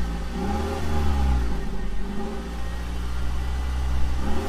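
Car engine running with a deep, steady note, revved up and back down about a second in and revved again near the end.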